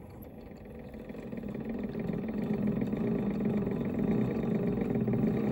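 A 0.7-horsepower benchtop mini lathe's spindle motor running at slow speed while a tap in the loose tailstock chuck is walked into a spinning steel threaded rod to power-tap it. The hum grows louder over the first couple of seconds, then holds steady.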